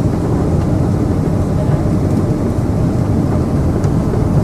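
Steady cabin noise inside a Boeing 777-300 airliner on its approach to land: jet engines and rushing airflow making a low, even rumble.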